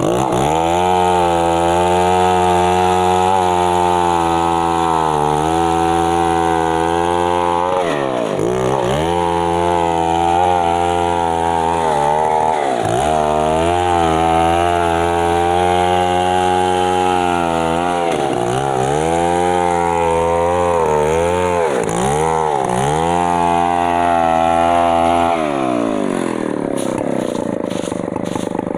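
Stihl MS 070 chainsaw, a large two-stroke, running at full throttle through a cut in mahogany. The pitch dips briefly several times as the revs fall and pick up again, then drops away near the end as the throttle is released.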